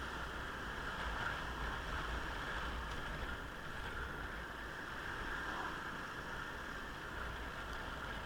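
Steady wind and road noise from a motorcycle on the move: an even rushing hiss over a low rumble, with no distinct engine note standing out.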